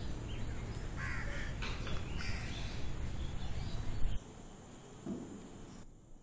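Crows cawing, with calls about one and two seconds in, over a steady background hum. About four seconds in the sound drops suddenly to a quieter hiss.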